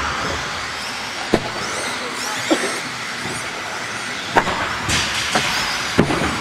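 Several 1/10-scale electric 2WD RC buggies racing: a steady hiss of tyres and motors with high motor whines rising and falling in pitch as they speed up and slow down. Sharp short knocks from the cars stand out about five times.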